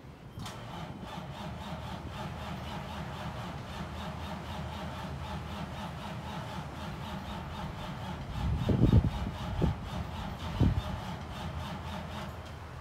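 Caterpillar C12 inline-six diesel in a Kenworth T800 being cranked on the starter in a cold start at -12 °F, not plugged in: a steady rhythmic churning begins about half a second in and stops near the end. About two-thirds of the way through come three heavy low thumps.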